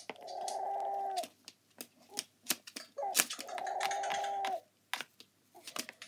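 A carrion crow's drawn-out calls played through a tablet's small speaker, two calls each about a second and a half long, at the start and about three seconds in. Between them a crow's beak taps and clicks sharply against the tablet.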